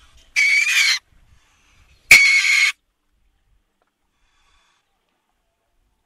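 Weasel giving two short, high, harsh calls, each about half a second long and about a second and a half apart.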